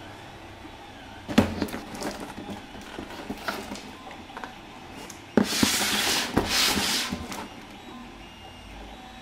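A cardboard box being handled on a wooden table: it knocks down onto the tabletop about a second in, then is tapped and rubbed as it is lifted and turned. Past the middle comes a louder scraping rustle of cardboard lasting about two seconds.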